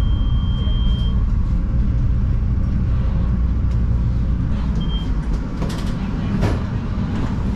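CTA Yellow Line rapid-transit railcar heard from inside the cab end: a steady low rumble, with a thin high squeal-like tone that stops about a second in, a short high tone about five seconds in, and a few sharp knocks around six seconds.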